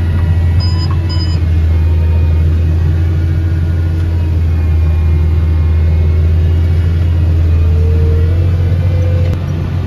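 Tractor engine drone heard inside the cab while pulling an Amazone seed drill through the field, with two short electronic beeps about a second in from the drill's control box. The drone eases a little near the end.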